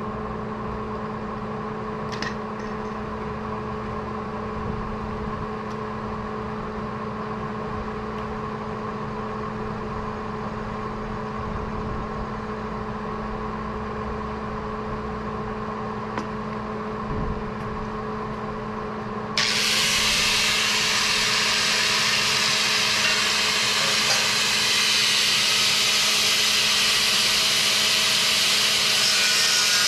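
A steady machine hum, then about two-thirds of the way in a power tool, most likely an angle grinder, starts up suddenly and grinds against the steel channel with a loud, hissing noise that runs to the end, its motor tone rising briefly as it spins up.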